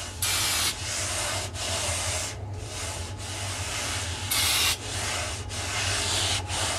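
Aerosol brake cleaner sprayed in two short hissing bursts, about a quarter second in and again about four and a half seconds in, between repeated scrubbing strokes that wipe dirt off an aluminum channel.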